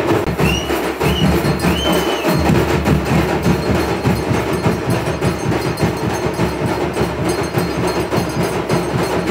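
Fast, steady percussion drumming with a dense run of sharp strikes, and a few short high notes near the start.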